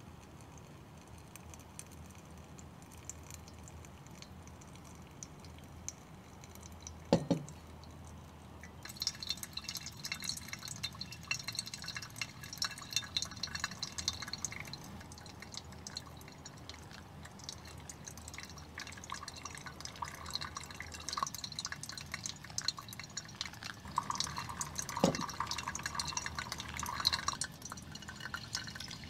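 Pour-over coffee dripping from a ceramic cone dripper into a glass server. After a quiet start it becomes a busy run of small drips and patters, with two sharper taps, one about seven seconds in and one near the end.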